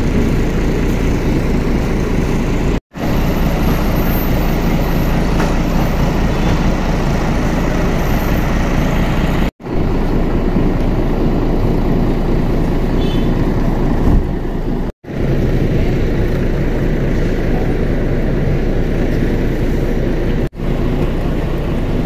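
Steady low rumble of a large tour bus's diesel engine idling close by, with faint outdoor noise over it. The sound drops out for a split second four times.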